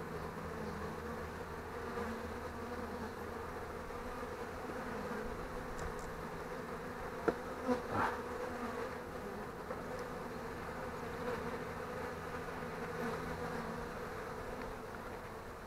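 Honeybees buzzing steadily over an open hive. Two short knocks a little after halfway, a hive tool working among the wooden frames.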